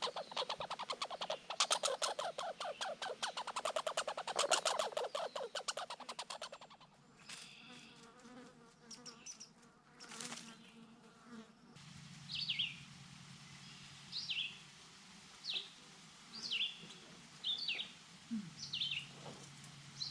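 Red squirrel chattering: a loud, fast rattle of about ten pulses a second, the call red squirrels use to drive off a rival, which stops about six seconds in. Later come short high descending chirps, about one a second.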